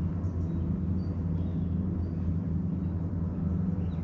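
A steady low rumble with no clear start or stop, with a few faint, short, high chirps over it.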